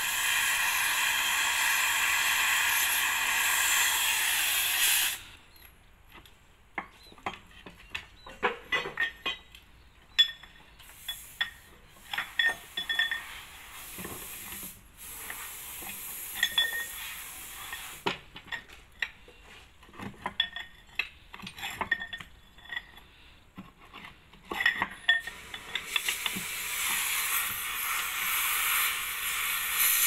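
A gas cutting torch hisses steadily while cutting into a bulldozer track roller, then cuts off suddenly about five seconds in. Scattered metal clinks and knocks follow as a steel bar is worked against the steel track rollers. A steady hiss starts again near the end.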